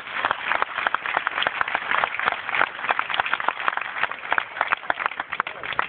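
Crowd of spectators applauding, a dense run of hand claps in which single claps stand out.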